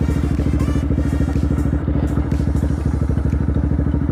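Motorcycle engine running at a steady speed, a fast even stream of firing pulses over a strong low hum.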